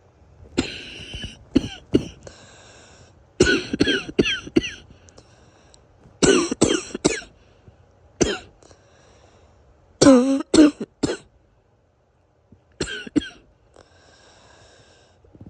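A person's wheezy morning cough while ill: six bouts of two to four coughs each, a few seconds apart. Between some bouts there is a faint whistling, wheezy breath.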